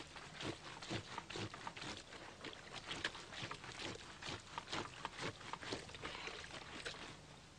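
A run of irregular knocks and clatters, about two or three a second, that stops about seven seconds in.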